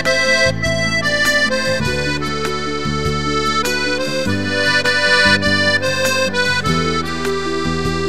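Piano accordion playing a melody, its reedy notes held over sustained bass and chord notes that change every second or two.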